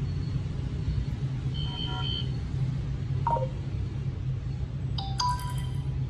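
Samsung Galaxy Z Flip 5 notification sound previews playing as different tones are tapped in the list: short electronic chimes about two seconds in, a quick falling tone a little after three seconds, and a brighter chime near the end, over a steady low hum.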